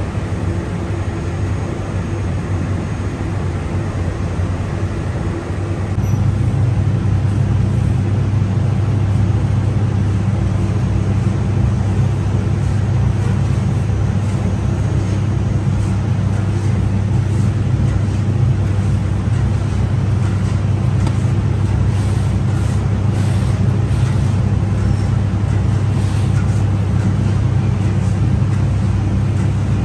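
Steady low machine hum and roar of a bakery's rotating-hearth bread oven, growing louder about six seconds in.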